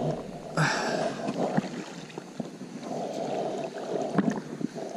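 Water sloshing and splashing around the legs of people wading through a shallow river, with a sharper splash about half a second in.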